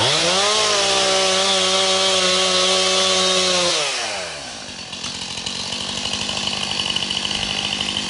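Chainsaw revving sharply up to full speed and running steady for about three and a half seconds, then dropping in pitch and running on at a lower speed while cutting into a tree.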